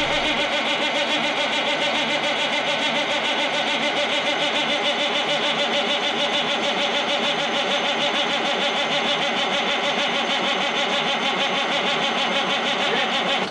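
Caterpillar 3406B diesel being cranked on its starter motor for about 13 seconds without catching, a steady, even rhythm that stops suddenly at the end. The engine is being turned over with three injector lines cracked open to bleed air and prime the mechanical injection pump.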